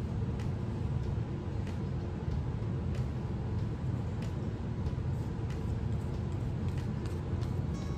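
A steady low rumble, with faint, irregular soft ticks of a paintbrush dabbing and stroking acrylic paint along the edge of a small stretched canvas.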